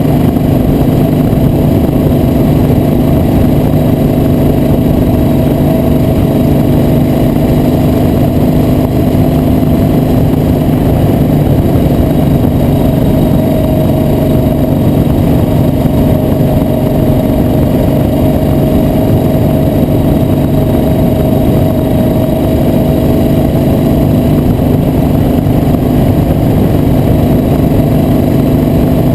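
Vehicle engine running steadily at cruising speed over a heavy low rumble, its pitch drifting slightly up and down without any sharp revving.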